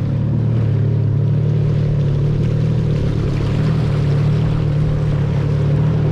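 1100 cc jet ski engine running steadily at an even pitch, with a steady rushing hiss over it.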